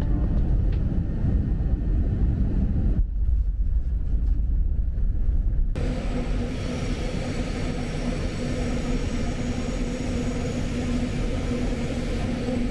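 Jet airliner on the ground, heard from inside the cabin as a steady low rumble. About six seconds in it cuts to the inside of a moving subway train: running noise with a steady motor hum.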